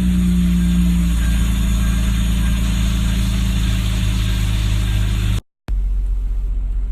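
Hyundai Tiburon GT's engine idling steadily just after being started, its idle easing down a little about a second in. The sound cuts out for a moment about five and a half seconds in.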